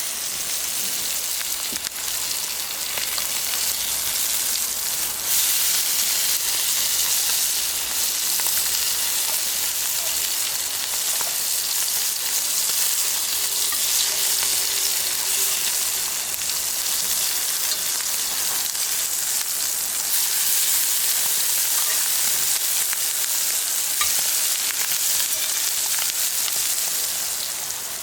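Food sizzling and crackling in a hot frying pan, a steady hiss with small pops.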